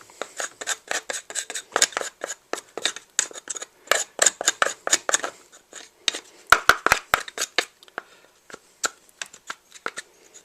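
Screwdriver scraping and picking old packed debris out from around a Husqvarna 55 chainsaw's chain brake: a steady run of quick small scrapes and clicks, with four sharp clicks a little past the middle.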